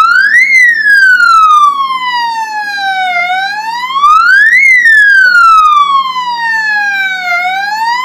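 Electronic police siren (bike hooter) wailing: the tone rises quickly and falls slowly, repeating about every four seconds. It is the bare siren unit being test-sounded in and out of its outer housing, and to the tester's ear it is no quieter with the housing removed.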